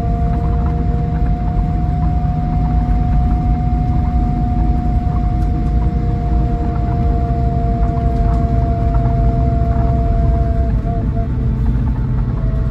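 Scania K440EB6 coach running along, heard from inside the cabin: a steady low rumble with two thin whining tones that hold for about ten seconds and break up near the end.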